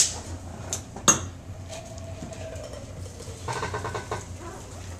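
Metal cocktail shaker with ice: a sharp metallic clink at the start, then a louder metallic knock about a second in as the shaker is handled and tipped to pour the chilled drink.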